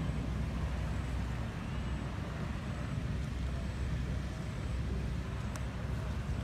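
A steady low rumble of outdoor background noise, with a brief faint click about five and a half seconds in.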